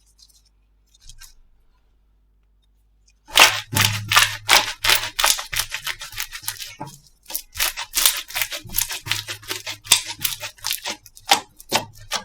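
Slime being worked by hand, giving a dense run of sharp crackling pops that starts about three seconds in after a near-quiet start.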